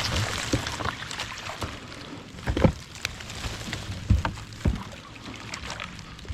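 Kayak being paddled: paddle strokes splashing and dripping in the water over a steady hiss, with a few dull low thumps, the loudest about halfway through.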